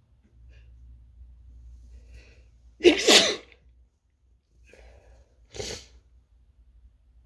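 A person sneezing: one loud sneeze about three seconds in, after a short intake of breath, then a shorter, quieter sneeze a couple of seconds later. The sneezer takes it for a cold coming on.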